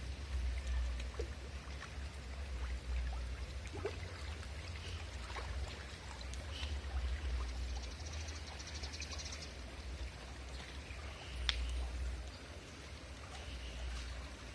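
Outdoor ambience: a fluttering low rumble of wind on the phone microphone, with faint scattered high chirps, a short buzzy trill a little past halfway and a sharp chirp soon after.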